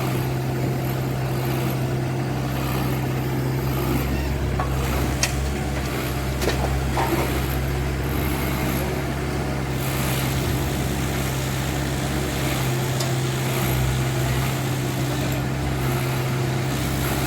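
Heavy diesel engine of a working excavator running steadily under load, with a few short knocks near the middle.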